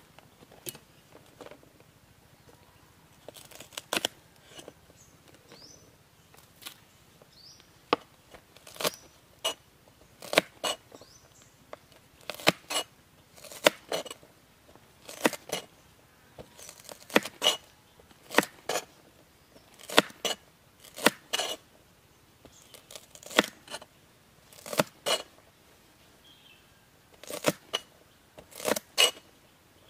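Cleaver chopping green beans on a plastic cutting board: sharp knocks of the blade on the board, sparse at first, then coming irregularly about once or twice a second, often in quick pairs.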